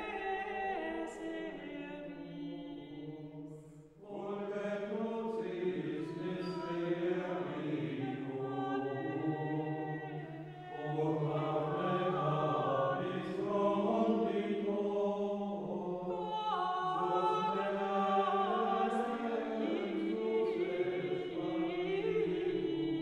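A small choir of monks chanting a cappella in long, slow sung phrases. A fresh phrase begins about four seconds in, after a brief drop.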